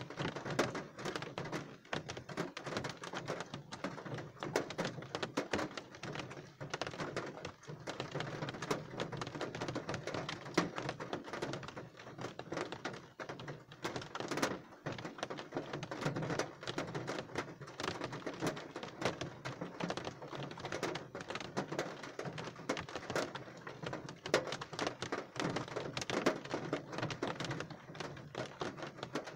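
Steady rain falling close by: many separate drops strike as quick, irregular ticks over a soft hiss.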